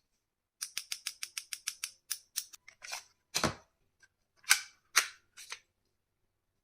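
Plastic clicks and clacks from a shell-ejection toy pistol being handled: a quick run of small clicks, about six a second, then four separate louder clacks, the two in the middle the loudest.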